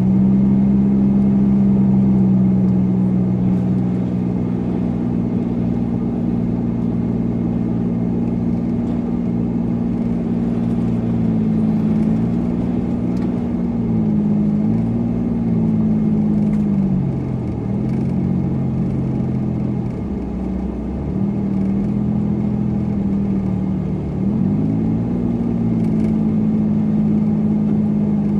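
Supercharged car's engine running while driving, with road noise beneath. Its pitch holds steady for the first half, then drops and picks back up several times as the revs change, dipping lowest about two-thirds through.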